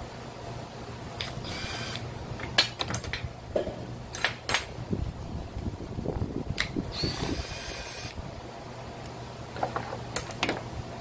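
Cordless drill-driver whirring in two short runs, backing screws out of a brush-cutter engine, with clicks and knocks of the tool and metal parts being handled in between.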